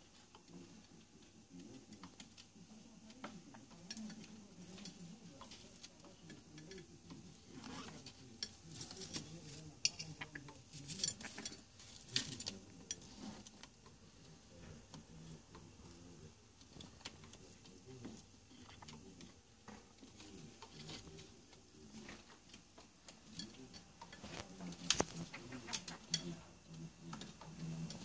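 Faint tapping, scratching and scraping of a green-cheeked conure's beak and claws on a glazed ceramic canister as it climbs in and rummages inside. The clicks come in scattered bunches, busiest about ten to thirteen seconds in and again around twenty-five seconds.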